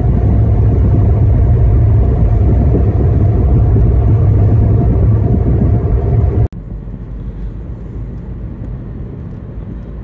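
Road and wind noise of a moving car heard from inside: a loud, steady low rumble that drops abruptly to a quieter steady hum about six and a half seconds in.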